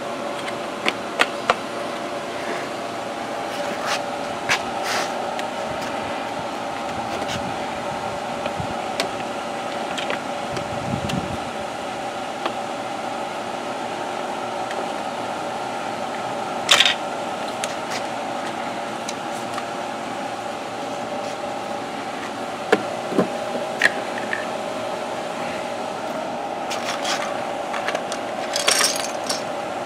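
Hard plastic toy-workbench parts clicking and knocking as they are handled and fitted together, a scattering of sharp clicks with the loudest about seventeen seconds in. A steady mechanical hum runs underneath.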